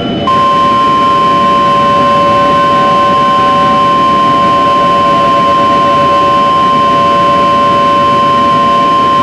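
Emergency alert attention tone: one steady, single-pitched tone held for about nine seconds, starting just after the beginning and cutting off near the end, over a bed of static hiss and fainter low steady tones.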